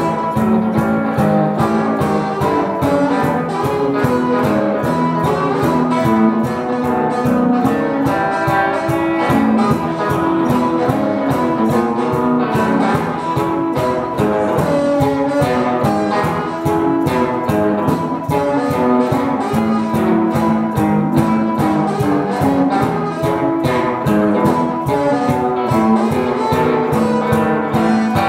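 Live blues harmonica and electric guitar playing together, the harmonica carrying the lead over the guitar, with a steady beat.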